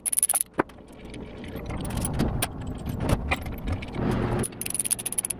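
Hand socket ratchet clicking rapidly as a nut on the exhaust header flange of a Subaru EJ25 engine is loosened, once briefly at the start and again near the end, with irregular metal clinks and handling noise between.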